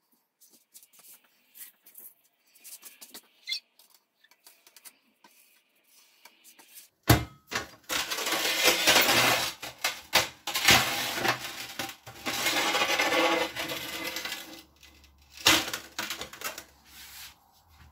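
A cloth rubbing hard over an oven door's glass and enamelled metal frame, in loud scrubbing strokes that start about seven seconds in and go on for several seconds. Light clicks and a few sharp knocks of the metal door being handled come before and after.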